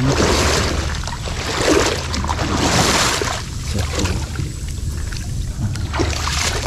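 Small boat under way on the water: a steady low drone beneath rushes of water and wind noise that swell and fade about once a second.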